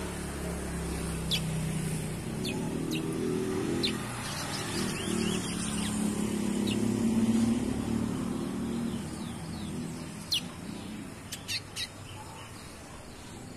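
Young chestnut-bellied seed finch (curió) giving short, sharp notes: a few scattered, then three in quick succession near the end. Under them a vehicle engine runs, growing louder toward the middle and then fading.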